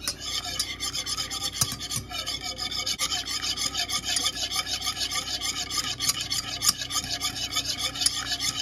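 Wire balloon whisk beating hollandaise sauce of egg yolks and melted butter in a saucepan: a rapid, even scraping and swishing of the wires against the pan, several strokes a second. The sauce is stirred without a break over low heat so the yolks cook without scrambling.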